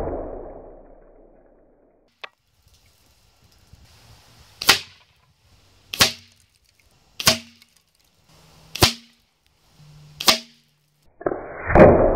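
A .22 Weihrauch HW97K spring-piston air rifle shooting pellets into a row of peppermint candies on a wooden board: five short, sharp cracks, about one every second and a half, then a louder, longer crash that dies away slowly near the end.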